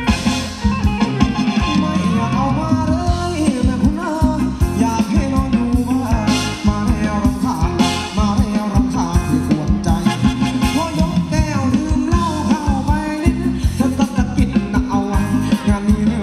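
A band playing upbeat Thai ramwong dance music with a steady, quick beat, with a singer's voice over the instruments.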